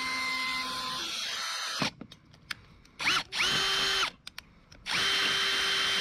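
Cordless drill boring a hole through a metal tube: the motor runs under load and stops about two seconds in, then gives two shorter bursts, each spinning up to a steady whine and winding down.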